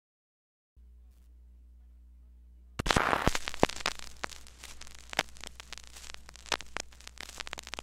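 Stylus dropping onto a spinning 45 rpm vinyl single about three seconds in, then crackle and scattered pops from the lead-in groove before the music starts. A steady low hum runs under it from under a second in.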